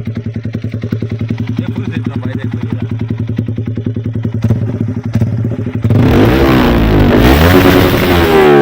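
Yamaha R25's parallel-twin engine idling through a full-system aftermarket exhaust with an even, rapid pulse, then revved hard about six seconds in, much louder, the pitch rising and falling.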